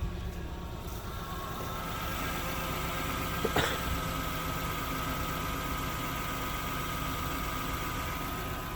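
A 1996 Lexus LS400's 4.0-litre V8 idling steadily, with a steady high whine alongside and one short click about three and a half seconds in. The owner says the engine runs really rich and suspects water in the fuel.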